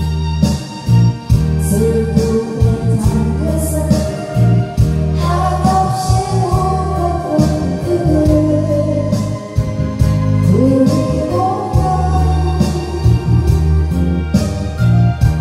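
A woman singing a Korean ballad into a karaoke microphone over a backing track with heavy bass and a steady beat.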